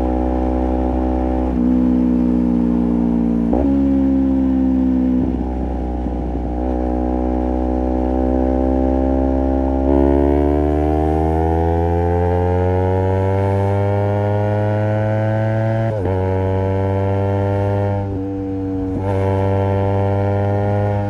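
Honda CBR250RR's parallel-twin engine running through a Project 79 slip-on exhaust while riding, its note dropping in sudden steps as the gears change. Partway through it holds one gear and climbs steadily in pitch as the bike accelerates, then steps down again with further shifts near the end.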